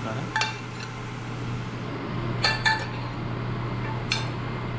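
Metal spoon clinking against a glass food container as fish is scooped out: five short ringing clinks, two in the first second, two close together about two and a half seconds in, and one about four seconds in, over a steady low hum.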